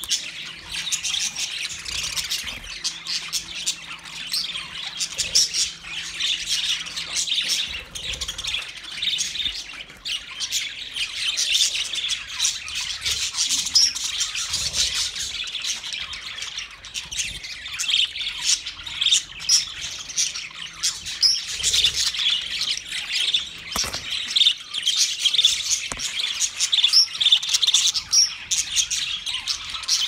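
A flock of budgerigars chirping, many birds calling at once in a dense, continuous chatter of short high chirps.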